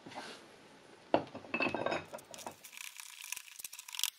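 Steel parts clinking and rattling as a threaded rod is handled and fitted into a cast-iron bracket on a metal workbench, with a sharp knock about a second in and a run of small metallic clicks after it.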